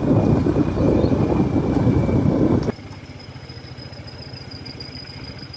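Motorcycle riding along with wind buffeting the microphone, cutting off suddenly about two and a half seconds in to a quieter motorcycle engine idling, with a faint steady high whine above it.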